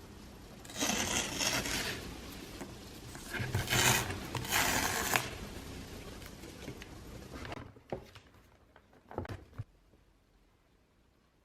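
Packaging being handled during an unboxing: three rasping bursts of rubbing or tearing in the first five seconds, then a few light knocks and taps.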